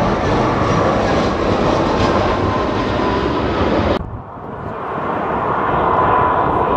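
Jet airliners on final approach. An Airbus A320-200's engine noise, loud and close, stops abruptly about four seconds in. Then an approaching Airbus A330-300's engine noise swells again, with a steady whine growing louder.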